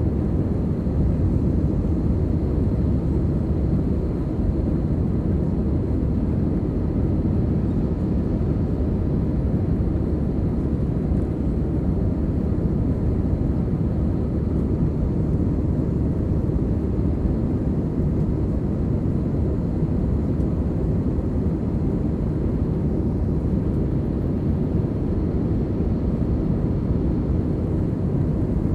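Cabin noise inside an Airbus A320 under way: a steady, even low rumble of the jet engines and rushing air, with a faint high whine above it.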